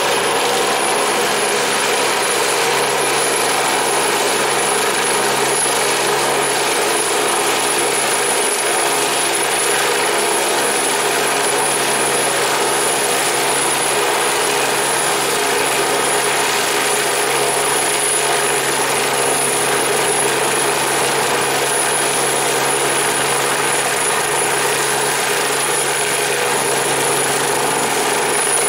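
Agusta A109 twin-turbine rescue helicopter hovering close by: a steady high turbine whine over the thrum of the main rotor, unchanging in level.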